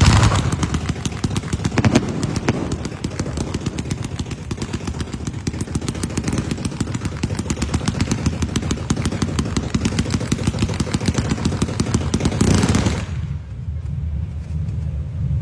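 A string of firecrackers going off in a rapid, unbroken rattle of small bangs, starting suddenly and cutting off about thirteen seconds in, followed by a low rumble.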